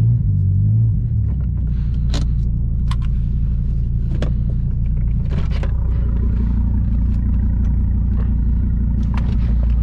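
Dodge Viper GTS's 8.4-litre V10 running at low revs with a steady low rumble, a little stronger in the first second. A few light clicks sound over it.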